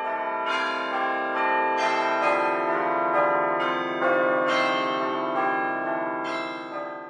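Bells ringing a slow sequence of struck notes, each new strike overlapping the ringing of the last, fading out near the end.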